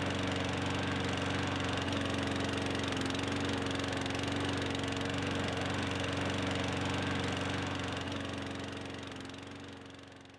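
Small engine running steadily, fading out over the last two seconds or so.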